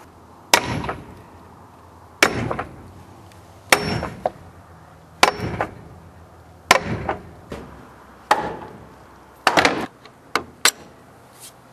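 Hammer blows on a wooden block held against a rust-frozen cast-iron lathe cross-slide, driving it along its ways: about seven heavy knocks, one every second and a half or so, each with a brief ring from the iron, then a few lighter knocks near the end.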